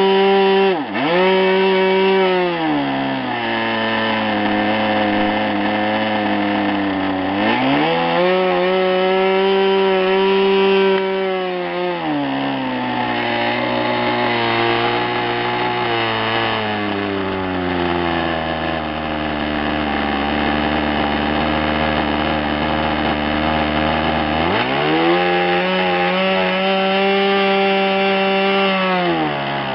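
O.S. 46 LA two-stroke glow model aircraft engine running at high speed, with a brief dip in revs about a second in. It is throttled down and back up, then slowed gradually to a steady idle, and opened up again to full speed a few seconds before the end.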